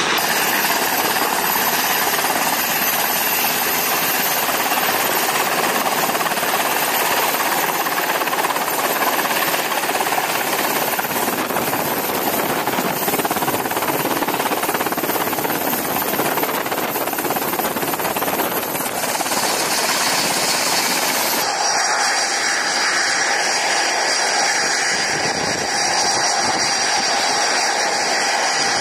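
Rotor and turbine noise of an MH-60 helicopter, a loud steady roar as it comes in and hovers low over a carrier's flight deck. About 21 seconds in, the sound switches abruptly to a steady engine roar with several high whining tones.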